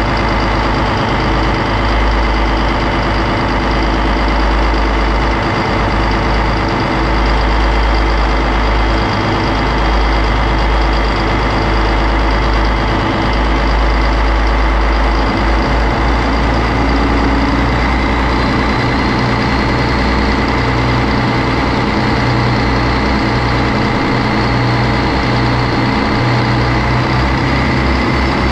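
Yanmar 6CZ six-cylinder turbocharged marine diesel running steadily on its test run after servicing. Its low note shifts upward about halfway through, and a faint high turbo whine climbs slightly in the second half.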